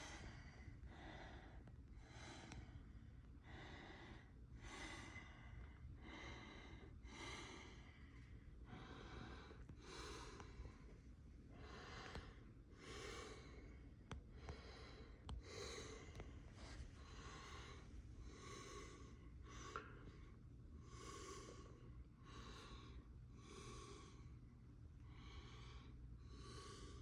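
Faint breathing close to the microphone, soft regular puffs about once a second, over a low steady room hum.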